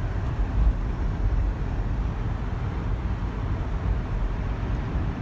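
Low, steady rumble of a vehicle driving: engine and road noise.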